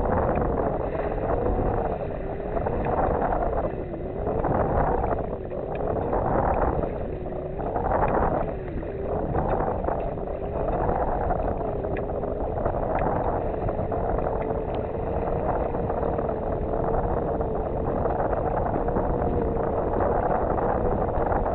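Wind buffeting a microphone at a sailboat's masthead, swelling and easing every second or two, with a hum that wavers slowly up and down in pitch.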